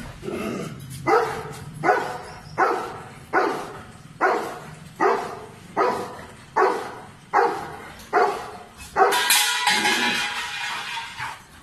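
Doberman barking in an even run, a bit more than one bark a second, guard-barking at a monkey above the wall. Near the end comes a longer, louder, harsher stretch of about two seconds.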